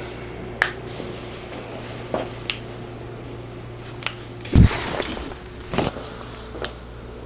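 Chiropractic wrist and hand adjustment: scattered soft clicks and knocks, the loudest a dull thump about four and a half seconds in, over a steady low room hum.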